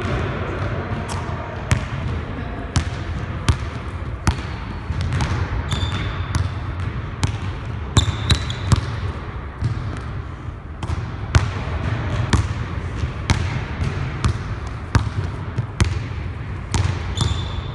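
Basketball dribbled hard on a hardwood gym floor, sharp bounces coming about one to two a second, with a few short high sneaker squeaks.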